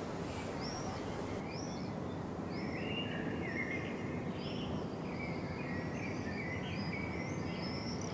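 Outdoor ambience: a steady background hiss with many small birds chirping, short rising and falling calls repeated over and over.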